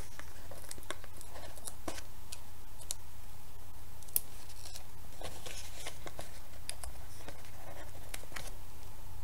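Paper and card stock being handled and pressed down by hand: scattered light rustles and small clicks over a low steady hum.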